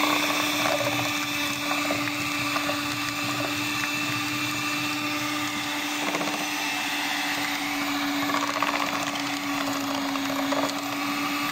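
Russell Hobbs electric hand mixer running with a steady hum, its beaters churning a stiff, crumbly oat cookie dough in a plastic tub.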